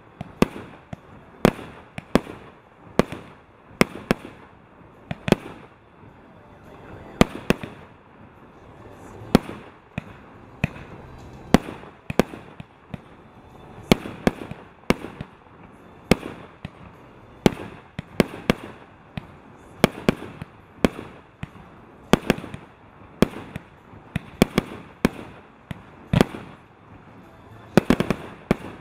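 JW1111 'Show of Fireworks' consumer cake firing a long sequence of shots, a sharp bang roughly every half second to second, some coming in quick pairs, with a low hiss between.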